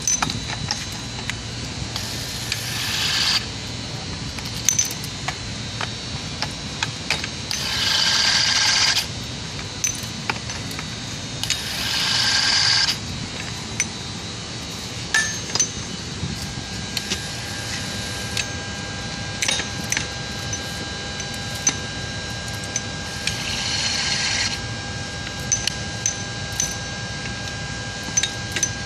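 E-RAD 700 electric torque wrench running in four short bursts of about a second each while tightening the bolts of a shaft coupling, with metal clicks and clinks of the socket and reaction arm between the runs.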